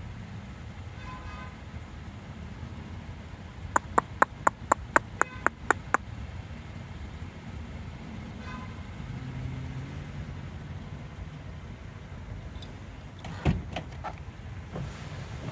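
Steady low rumble of distant road traffic. About four seconds in comes a quick run of about ten sharp clicks, about four a second, and near the end a single thump.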